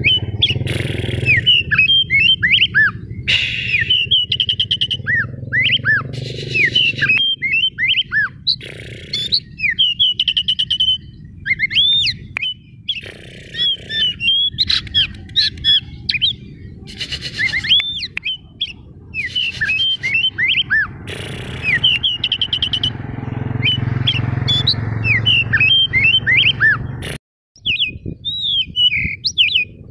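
Oriental magpie-robin of the white-breasted form singing hard: a fast, nearly unbroken run of short whistled, gliding notes mixed with harsher chattering calls. A steady low rumble lies underneath, and the sound cuts out for an instant near the end.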